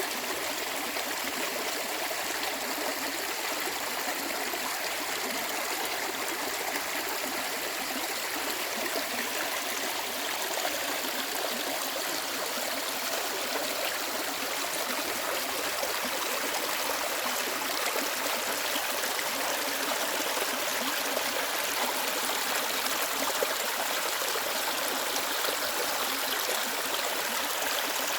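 Mountain stream babbling steadily over rocks: a continuous rush of running water.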